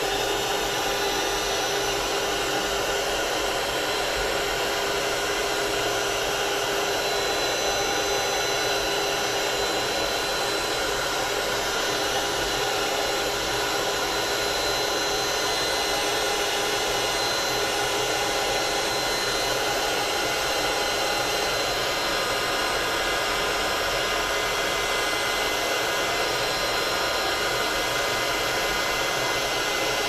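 Craft embossing heat tool blowing steadily, a constant rushing noise with a faint steady whine from its fan, as it dries freshly sprayed ink on a CD.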